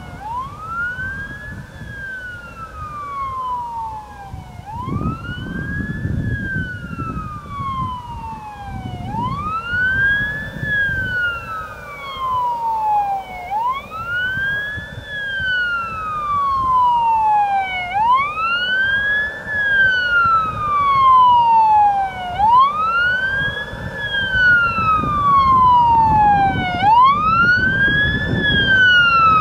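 Fire truck siren wailing on a Scania G440 fire tanker: each cycle rises quickly and then falls slowly, repeating about every four and a half seconds, and grows louder as the truck approaches.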